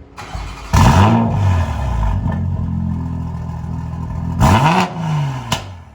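2020 Toyota Supra's engine running through a newly fitted Boost Logic aftermarket exhaust. It revs up sharply about a second in and settles to a steady idle, then is blipped up and back down once near the end.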